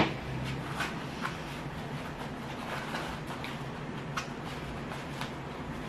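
Faint handling noise as small airbrush-kit parts are taken out of a hard box: a few light clicks and soft rustles over a low steady hum.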